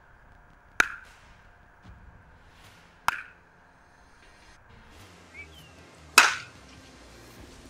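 Baseball bat hitting pitched balls in batting practice: three sharp cracks, about a second in, about three seconds in and just after six seconds, the last the loudest.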